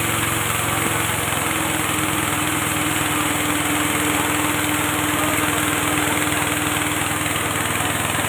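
A motor-driven rice bran (bekatul) making machine running steadily under load, a constant motor drone with a steady hum and hiss.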